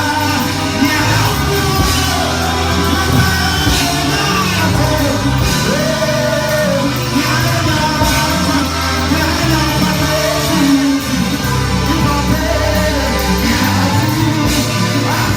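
Live gospel worship music: a singer's voice over a band with a steady, heavy bass line.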